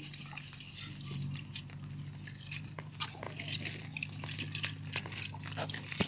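Hand rinsing and squeezing wet flattened rice (poha) in a small steel pot: soft wet crunching and crackling with an occasional click of grains or fingers against the pot. A faint steady low hum sits underneath.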